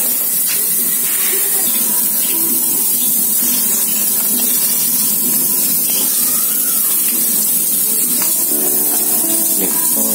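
Steady hiss of a 1-litre hand-pump pressure sprayer, modified as a foam sprayer, spraying soapy snow foam. Background music comes in near the end.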